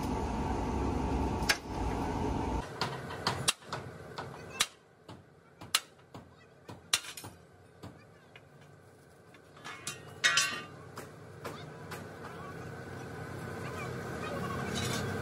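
Workshop sounds: a steady low machine noise that cuts off suddenly about two and a half seconds in, followed by scattered knocks and clinks of tools.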